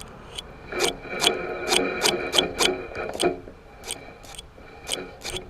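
Fishing reel being cranked, its gears rasping, with a sharp click about two to three times a second over a thin steady whine.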